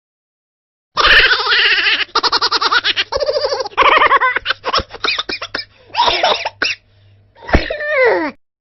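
Laughter sound effect: rapid, pulsing laughter that starts after a second of silence and breaks into shorter bursts, ending with a falling squeal.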